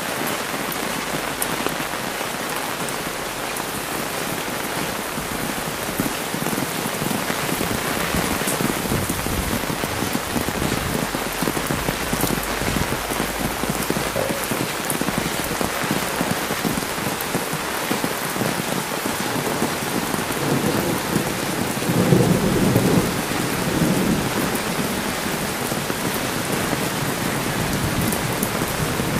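Heavy rain falling steadily on an umbrella overhead, with a low rumble swelling about twenty seconds in and fading over a few seconds.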